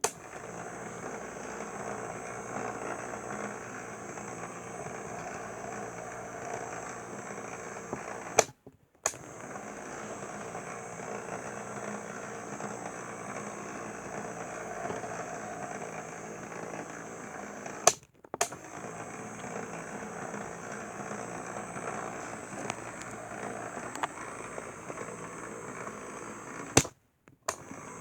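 Steady whir of a small motorized display turntable. About every nine seconds there is a sharp click, then a brief drop-out before the whir resumes.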